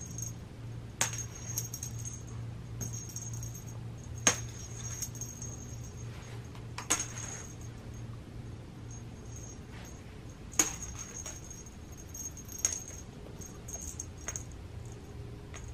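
Light metallic jingling with several sharp clinks spread through, over a low steady hum.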